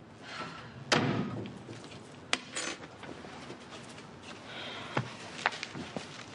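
A door shuts with a solid knock about a second in, followed by a few light knocks and footsteps.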